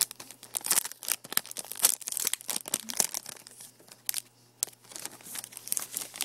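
Plastic shrink-wrap being torn and crinkled off a new disc case: irregular crackling and tearing that thins out in the last couple of seconds.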